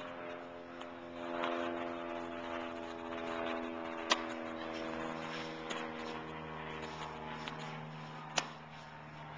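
Tennis racket striking a ball twice, sharp pops about four seconds apart, the first on a serve. A steady hum runs underneath.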